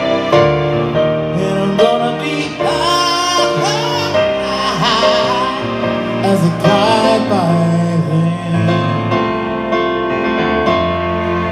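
Live ballad on electric keyboard, with a man singing a bending, wavering melody through the middle.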